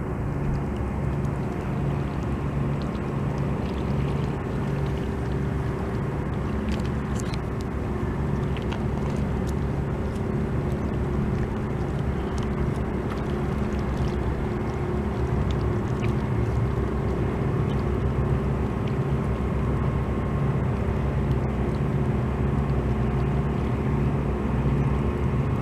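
A motor running steadily at idle, a low hum with a slow, regular throb that does not change.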